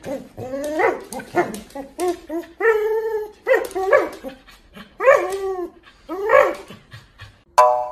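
Husky-type dog calling out in about six drawn-out vocal calls that rise and fall in pitch while tugging on a rope toy, one held longer about three seconds in. Plucked music starts just before the end.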